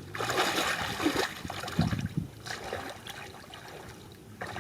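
Shallow muddy water splashing and trickling in irregular bursts, quieter over the last second or so.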